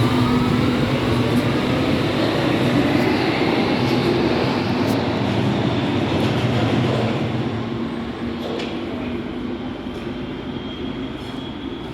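Berlin U-Bahn train pulling away: its traction motors whine, rising in pitch over the first few seconds, over the rumble of the running train. The sound settles and grows quieter after about eight seconds.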